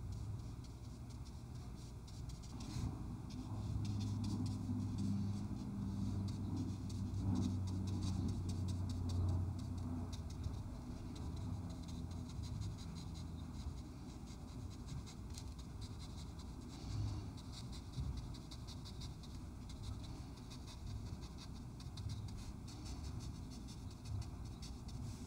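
Small paintbrush stroking and dabbing across watercolour paper, with faint, irregular scratchy strokes. A low steady hum swells underneath from about four to ten seconds in.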